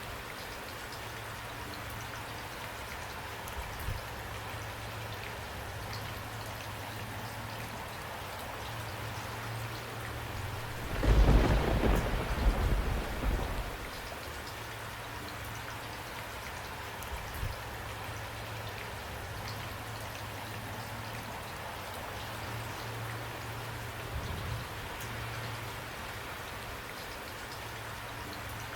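Steady rain falling, with a roll of thunder about eleven seconds in that swells for two or three seconds and dies back into the rain.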